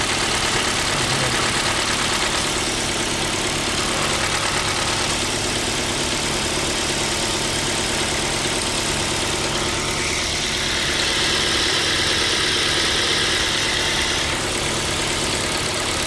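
Ford Focus 2's Duratec HE 2.0 inline-four petrol engine idling steadily, with a knock the owner likens to a piston-pin knock. A higher hiss joins for about four seconds, about ten seconds in.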